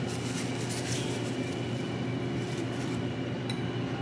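Burrito wrapper paper crinkling in the hands for the first three seconds over a steady low room hum, with one short click about three and a half seconds in.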